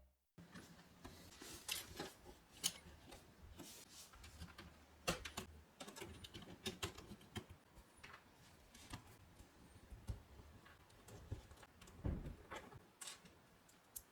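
Faint, scattered clicks of LEGO pieces being handled and pressed together, in small irregular clusters.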